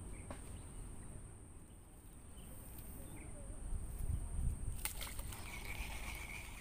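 Outdoor pond-side ambience: a low rumble on the phone microphone that swells about four seconds in, a faint steady high drone that stops with a sharp click about five seconds in, then a short buzzing insect call near the end.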